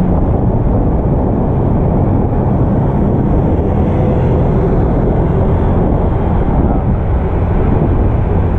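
Wind buffeting the microphone of an action camera on a moving bicycle: a steady low rumble.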